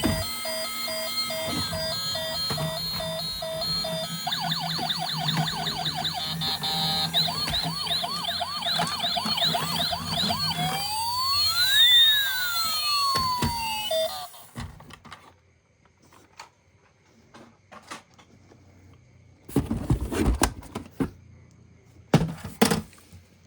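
Toy emergency vehicles' electronic sirens, several patterns layered: a pulsing steady beep, a fast warble, then slow rising and falling wails, cutting off about two-thirds of the way through. A few knocks and rustles of toy handling follow near the end.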